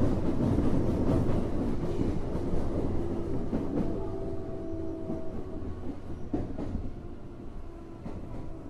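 Running noise heard inside a Tokyo Metro 05 series subway car at the car end: wheels rumbling and clacking on the rails, fading steadily as the train slows. A few brief steady tones come in around the middle.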